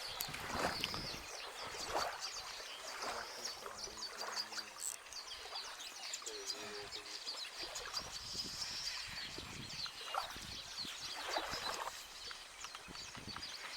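Many birds chirping and calling in a busy chorus of short, high notes, with scattered brief scuffs and rustles.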